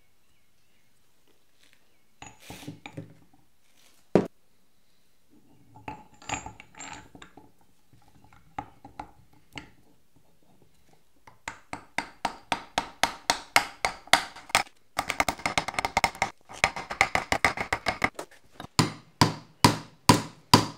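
Metal clinks and clicks as the parts of a restored dividing head are handled and the spindle is fitted into its housing. A few scattered clicks and taps come first, then about halfway a quick, even run of sharp metallic clicks, several a second, that goes on to the end.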